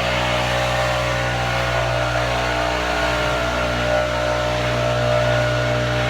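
Backpack leaf blower engine running steadily at high speed, blowing grit out of a dirty lawnmower air filter.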